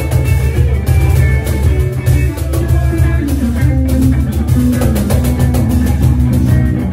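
Live blues band playing an instrumental passage: hollow-body electric guitar over a steady cajón beat, with low notes moving underneath.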